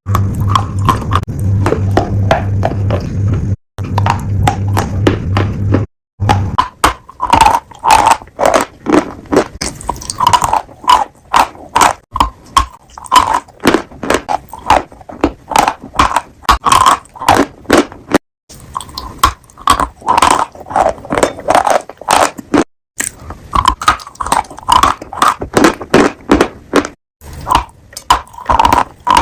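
Piglet chewing crunchy food, a rapid run of loud, crisp crunches. A steady low hum runs under the first six seconds, and the chewing breaks off abruptly for a moment several times.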